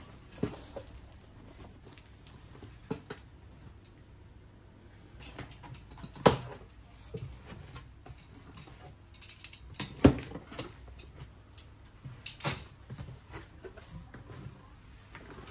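A cardboard box being opened and handled on a counter: scattered knocks and taps as the flaps are folded back and the contents touched, the two loudest about six and ten seconds in.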